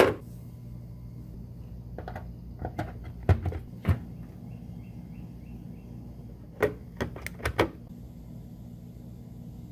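Hard plastic clicks and knocks as a STIHL battery charger is handled and an AK 10 lithium-ion battery is set down onto it. There is a cluster of sharp clicks from about two to four seconds in and another around seven seconds, over a steady low hum.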